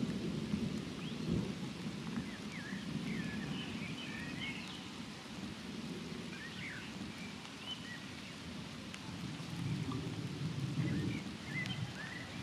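Distant thunder rumbling low and rolling, swelling again about ten seconds in, over the patter of light rain. Birds chirp briefly now and then.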